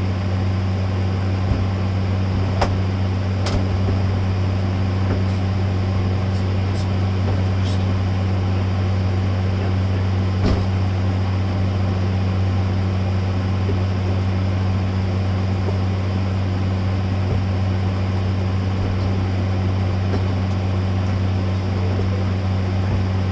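A steady low mechanical hum that holds level throughout, with a few light knocks and clicks as the cooler is worked against the edges of its opening.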